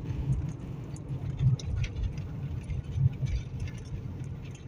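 Low, steady rumble of the 2003 Toyota Corolla running, heard from inside the cabin, with scattered faint light ticks.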